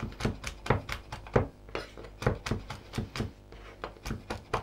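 Kitchen knife chopping whole almonds on a wooden cutting board: quick blade taps on the board, about three or four a second, with a brief pause a little past halfway.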